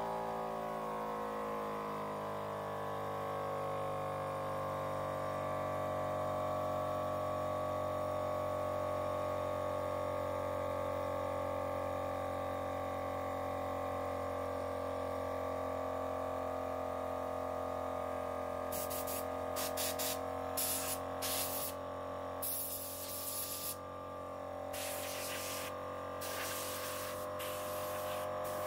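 Twin-cylinder car tyre-inflator air compressor pump running steadily while it fills its tank, its pitch sinking a little over the first few seconds. From about two-thirds of the way in, air blasts from a blow gun hiss over it: several short puffs, then a few longer blasts.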